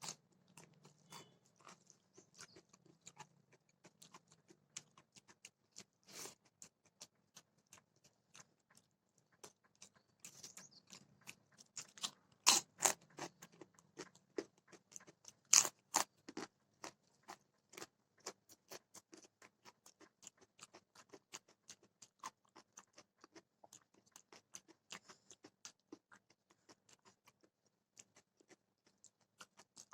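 A person chewing and biting food close to the microphone: a steady run of small wet clicks and crunches, with a few louder crunches about halfway through.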